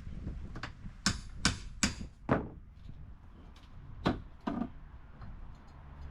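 A series of about seven sharp, irregular knocks of a hammer on wooden deck boards as the old decking is being torn off: a quick run of blows in the first two and a half seconds, then two more around four seconds in.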